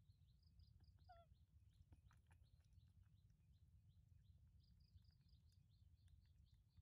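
Near silence: faint outdoor ambience of a low rumble under a steady run of quick, high chirps, with one short falling call about a second in.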